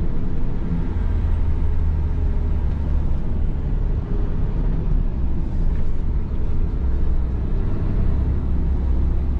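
Heavy truck driving, heard from inside the cab: the diesel engine and road noise make a steady low rumble that swells slightly twice.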